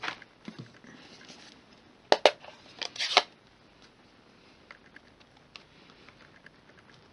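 Hard plastic clicks and taps from a red ink pad's hinged case and a clear acrylic stamp block being handled while a stamp is inked: one click at the start, two sharp clicks a little after two seconds and a cluster around three seconds, then faint small ticks.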